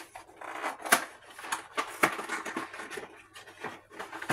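Kitchen handling clatter: a run of light knocks, clicks and scrapes from cookware and utensils being moved about, the sharpest knock about a second in.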